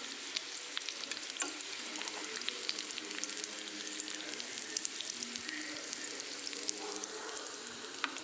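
Shallow-frying oil sizzling steadily in a pan around boneless chicken pieces that are fully fried. There are frequent short sharp crackles and pops.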